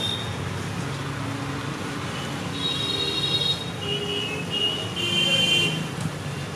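Street traffic noise: a steady low rumble, with several short high-pitched tones from about two and a half seconds in.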